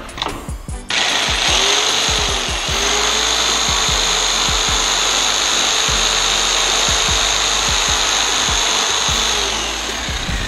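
Makita miter saw motor starting up about a second in, running steadily with a high whine, then winding down near the end.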